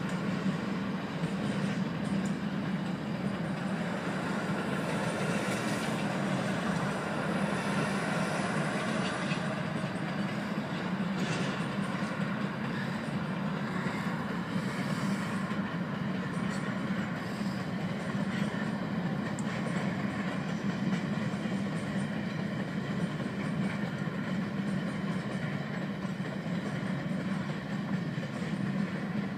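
A train rolling past with a steady, unbroken rumble of its cars on the rails.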